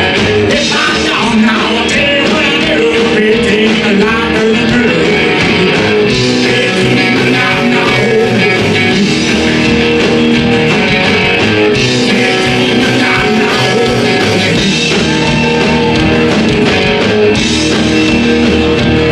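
Rock and roll song with a singer and electric guitar over a steady beat.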